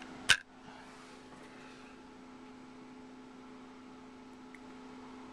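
A steady low electrical hum. A single sharp click about a third of a second in is the loudest sound.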